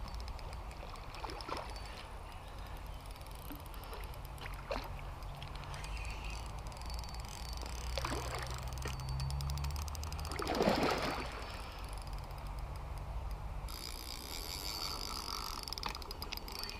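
A hooked carp splashing at the pond's surface as it is played on the rod: several short splashes, and one louder, longer splash about ten and a half seconds in, over a low rumble.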